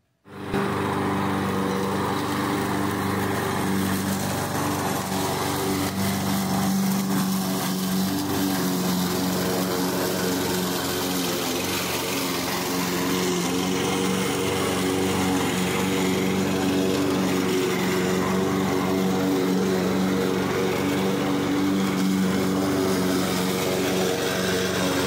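Gasoline lawnmower engine running steadily at working speed, cutting tall grass.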